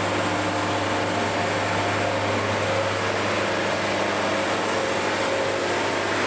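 Portable band sawmill running steadily, its band sawing through a log, with a constant low hum under a dense, even noise.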